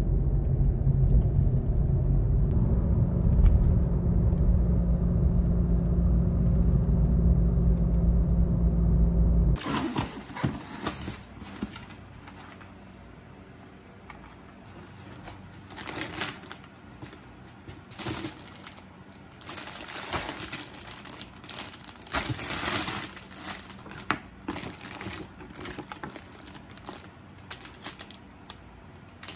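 A loud, steady low rumble for the first third, then plastic food packaging crinkling and rustling in irregular bursts as groceries are handled and lifted out of a styrofoam cooler box.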